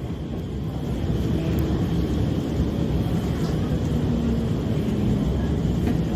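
SMRT R151 metro train running between stations, heard from inside the car: a steady low rumble of wheels and motors, with a faint hum coming and going in the middle.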